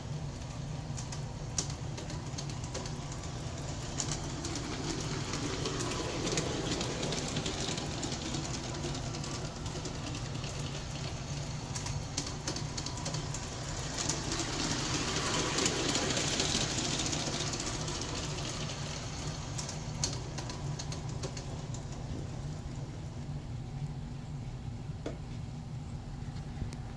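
Aristo-Craft G-scale 0-4-0T model steam locomotive and passenger cars running on brass track: a steady motor hum with wheel rumble, growing louder around the middle as the train passes close, and occasional clicks.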